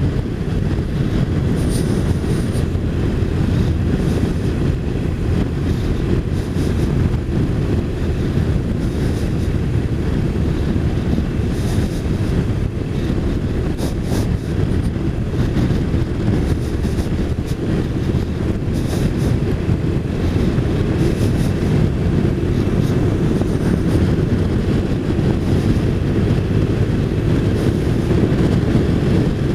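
Wind rushing over the microphone of a touring motorcycle riding at road speed, a steady low rush with the bike's engine and road noise underneath.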